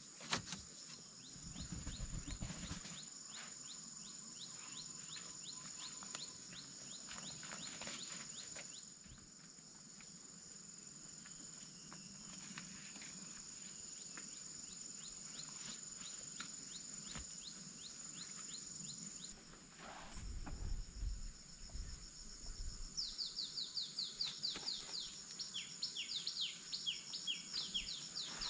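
Insects droning with a steady high-pitched tone. In the first few seconds there are light clicks and knocks as bamboo slats are handled. From near the end a bird calls in quick repeated falling chirps.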